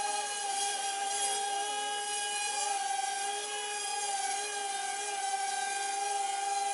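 Micro quadcopter's small motors and propellers spinning at full throttle: a steady high whine with a few fainter tones drifting up and down.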